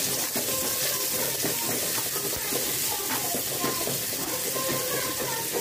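Ginger-garlic paste sizzling in hot oil in an aluminium kadai, a steady hiss, while a steel slotted spoon stirs it with light scrapes against the pan.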